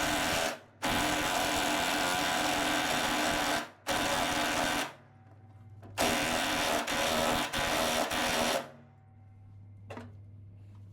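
Cordless impact wrench hammering in three runs, the first about three seconds long, then a short one and a longer one, as it drives a greased, threaded ball joint into the suspension arm. The runs stop abruptly, leaving a low steady hum.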